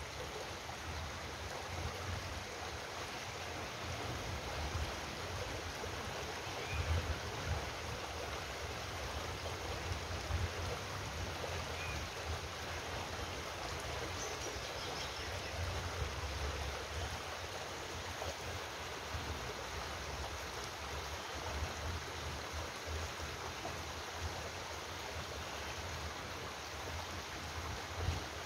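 Steady rushing of flowing water, like a stream or waterfall, an even hiss with no pauses. Irregular low bumps on the microphone come and go over it.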